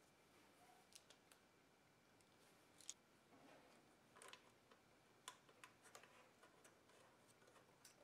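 Near silence with faint, scattered small clicks and taps from hands handling a crimped wire terminal and screw on a gauge cluster's circuit board.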